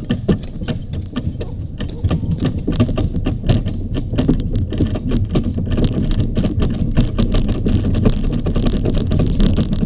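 Bobsleigh runners rattling and scraping on the ice as the sled gathers speed down the track: a dense clatter of sharp knocks over a low rumble, with a rushing hiss growing louder through the run.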